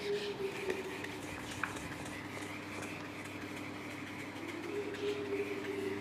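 Duster rubbing across a whiteboard as earlier working is wiped off, with a few light taps, over a steady low background hum.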